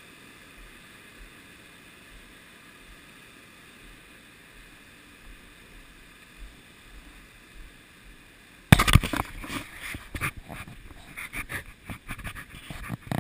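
Faint steady hiss, then about two-thirds of the way through a sudden loud knock right at the microphone of a helmet-mounted camera. Irregular knocking and scraping follow, the sound of the camera or helmet being bumped and rubbed.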